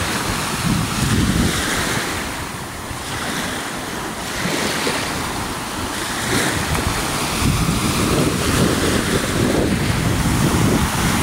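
Lake waves washing and breaking, with gusty wind buffeting the microphone in uneven surges.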